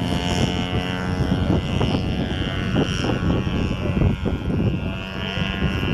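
Radio-controlled aerobatic airplane's engine and propeller running steadily as the plane flies past low and climbs away.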